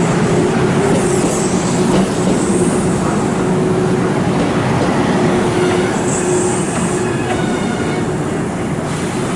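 Kintetsu electric train running on the rails: a steady rumble with a steady hum, and brief high wheel squeals about a second in and again about six seconds in.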